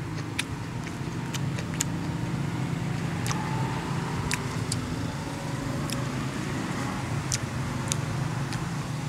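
A steady low hum like a running engine, with a dozen or so scattered sharp clicks and smacks from chewing and from fingers picking at grilled prawns on a plate.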